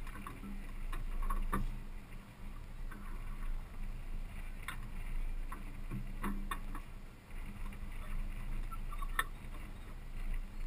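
Toyota Tundra pickup driving off-road: a steady low engine and tyre drone, with sharp knocks and rattles from the truck every couple of seconds.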